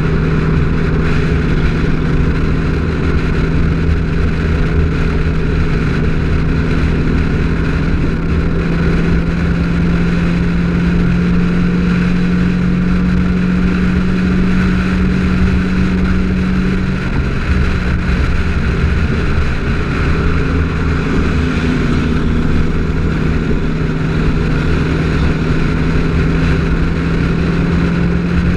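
De Tomaso Pantera's 351 Cleveland V8 running steadily at cruising speed, heard from outside the car with wind and road noise. The engine note eases a little past the middle and picks up again near the end.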